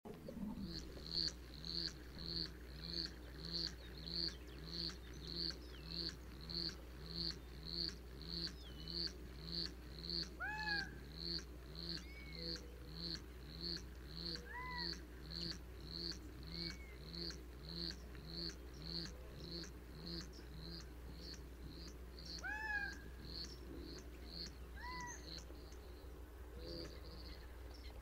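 Black-chinned hummingbird giving a short, high chip note over and over at a steady pace, about three every two seconds. A few lower, arching calls sound now and then among the chips.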